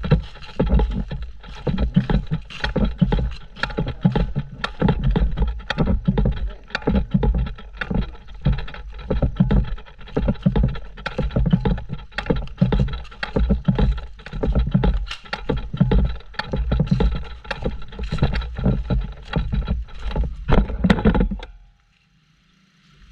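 Rhythmic thumps and rustling right against the microphone, about one to two a second, with scattered sharp clicks, like a person walking with gear during an airsoft game. It stops suddenly near the end.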